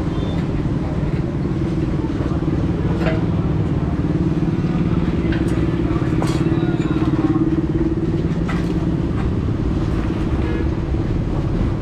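A steady engine drone that swells slightly midway, with a few sharp taps or clicks over it.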